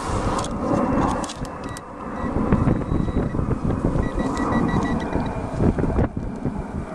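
Wind buffeting the microphone, with a metal detector giving two runs of short, evenly repeated high beeps over a buried target, about two seconds in and again about four seconds in.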